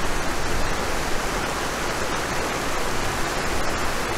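Steady rushing of river current flowing over shallow rocks, an even noise with no distinct splashes.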